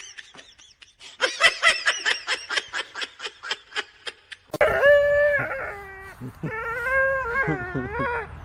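A dog vocalising: a quick run of short yips several times a second, then, about four and a half seconds in, long wavering howls.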